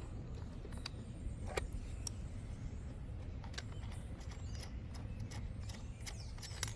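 Small metal clicks and clinks as loosened nuts are taken off by hand from the stoplight bracket of an electric dirt bike's seat, over a steady low rumble. Birds chirp faintly from a few seconds in.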